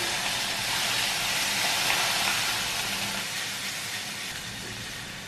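Tofu pieces sizzling in oil in a hot frying pan as liquid aminos is sprayed onto them; the sizzle starts suddenly and slowly dies down.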